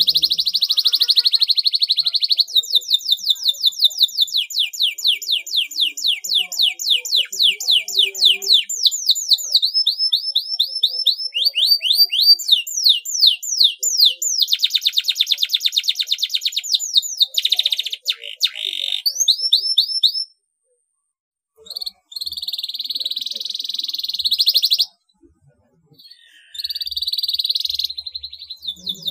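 Domestic canary singing a long run of fast trills. Each trill is a rapid series of sweeping notes, many a second, and it switches to a new trill every second or few, with dense buzzy rolls among them. The song breaks off briefly twice in its last third.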